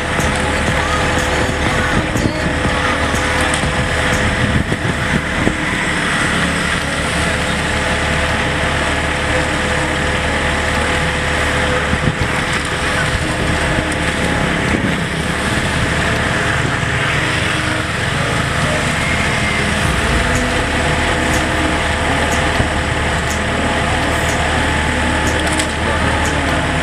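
Yanmar excavator's diesel engine running steadily, with a few steady tones.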